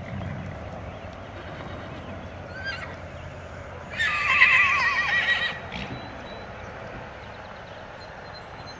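A horse whinnying once, a long quavering call about four seconds in that lasts about a second and a half.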